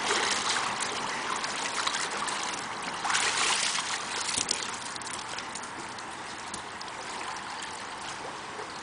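Pool water trickling and splashing, with a louder rush of water about three seconds in as a swimmer hauls himself up the pool ladder and water streams off him.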